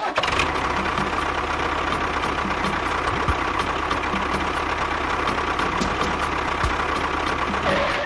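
A motor running steadily: a constant whine over a low hum, with faint ticks about three times a second.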